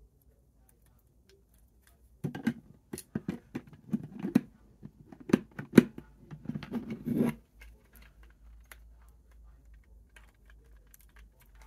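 Plastic Lego bricks clicking and knocking against each other and the tabletop, a quick run of sharp clicks for about five seconds starting a couple of seconds in, then only faint ticks. A piece is being worked at that won't press all the way in.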